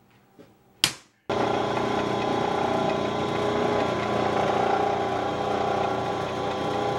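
A hammer strikes a punch once, sharply. About a second in, a drill press starts up suddenly and runs steadily, drilling quarter-inch holes in a metal bar.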